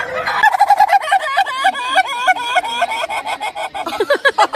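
Poultry calling in a fast run of short, repeated, pitched calls, about five a second, with a lower-pitched voice joining near the end.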